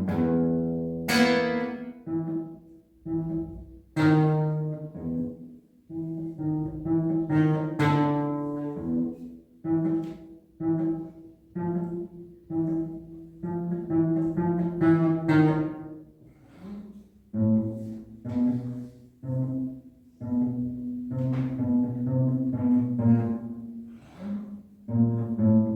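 Cello playing a slow piece in separate, clearly struck notes, phrase by phrase with short gaps between them.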